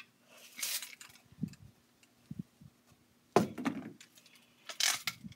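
Handling noise from fishing line being wrapped and pulled tight onto a wooden stick by hand: three short rustling scrapes with a few soft knocks between them.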